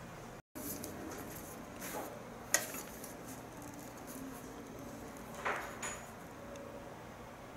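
A few light knocks and clinks of small hard objects being handled on a work surface, the sharpest about two and a half seconds in and two more near the six-second mark.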